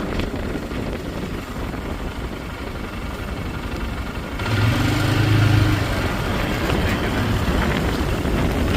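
Blizzard wind buffeting the microphone in a low rumble, gusting louder about halfway through with a brief low hum.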